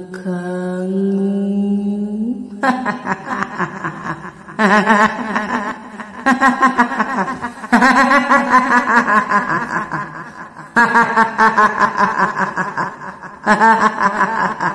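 Kuntilanak ghost laughter, starting about two and a half seconds in and going on in a string of trembling bursts of a second or more each, with short breaks between them.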